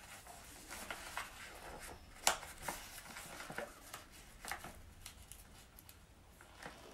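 Faint crinkling and rustling of a plastic stand-up pouch as a small child's fingers pull at its resealable top, trying to open it. There are scattered crackles and clicks, the sharpest about two seconds in.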